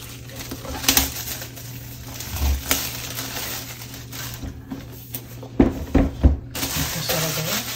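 Cardboard laptop box being handled and turned over on a desk: scattered taps and knocks, a few heavier thumps about six seconds in as it is set down, and rustling of plastic shrink-wrap.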